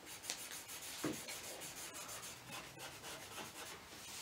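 Felt-tip marker pens scratching and rubbing across paper in quick repeated strokes as they draw.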